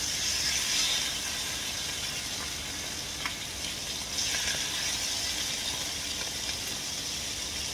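Marinated chicken pieces sizzling in a hot frying pan as they are laid in with tongs. The sizzle swells about four seconds in as another piece goes into the oil.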